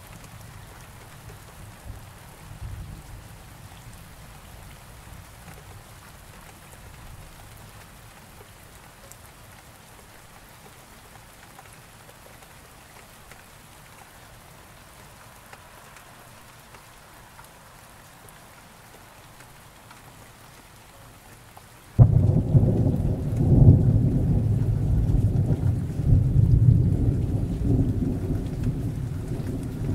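Steady rain falling, with a faint low rumble of thunder at first that dies away. About 22 seconds in, a loud, deep thunder rumble starts suddenly and rolls on in several swells over the rain.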